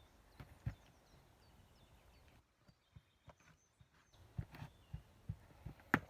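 Irregular soft knocks and thuds of a climber's shoes and hands on sandstone boulder and pad, with one sharper knock near the end. Faint bird chirps in the background.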